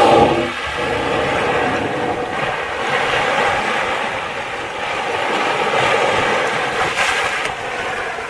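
A humpback whale's blow, a loud exhale at the very start, followed by steady wind and water noise rushing over the microphone.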